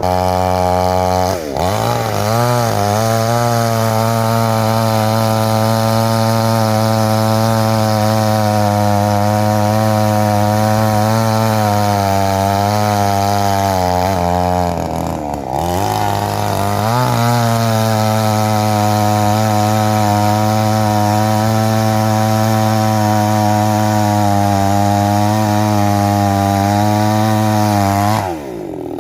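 Petrol chainsaw running at high revs while cutting a coconut tree, its pitch wavering under load. The revs dip briefly twice, about a second in and about halfway, then drop off sharply near the end.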